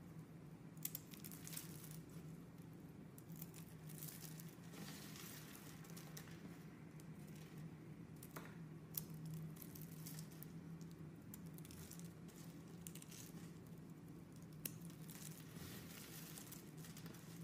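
Dry shaved soap curls crackling and rustling as fingers crumble and pick apart a heap of them, with irregular crisp crunches and a few sharper snaps. A faint steady low hum runs underneath.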